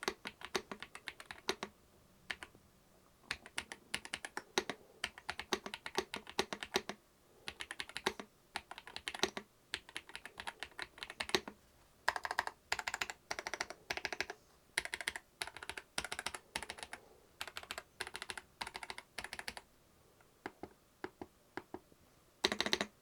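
Typing on an Ajazz AK820 Max wireless mechanical keyboard with Sea Salt V2 linear switches: rapid key clacks in bursts separated by short pauses, thinning out to a few scattered keystrokes near the end.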